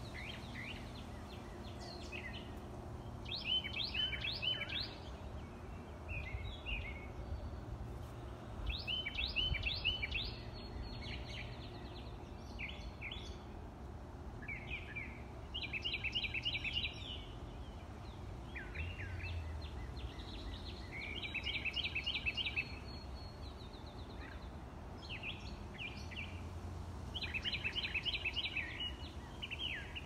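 Songbirds singing in the early-morning dawn chorus. One bird repeats a short phrase of quick repeated notes about every five to six seconds, and other birds give shorter calls in between. A steady low background rumble runs underneath.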